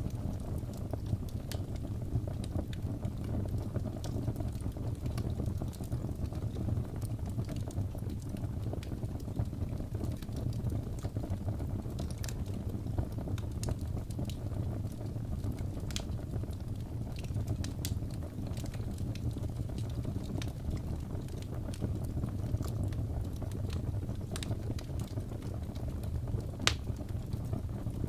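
Fireplace fire crackling: a steady low rumble with sharp, irregular pops.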